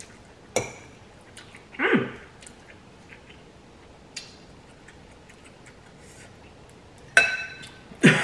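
Eating sounds: a fork clicks against a glass bowl of noodles, and a short vocal sound falling in pitch comes about two seconds in. Near the end an iced glass clinks and rings as it is picked up to drink, followed by a loud vocal sound.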